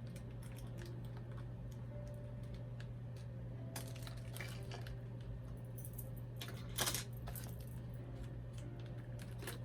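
Scattered light clicks and crinkles of plastic and cardboard toy packaging being handled and opened, with a louder crackle about seven seconds in, over a steady low hum.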